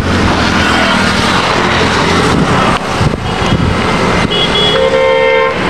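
Loud, steady highway traffic noise from passing cars and trucks. A vehicle horn sounds briefly about three seconds in, then honks again in a longer held note near the end.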